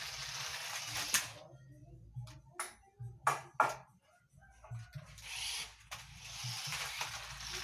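Small electric motor and plastic gearbox of a 1:18-scale toy RC car whirring in two runs, with a few sharp clicks and knocks in the pause between them.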